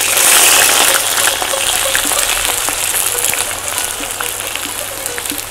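Chopped onion dropped into hot oil in a cast-iron kazan: a sudden loud sizzle that eases into steady frying with small crackles as the onion is stirred about.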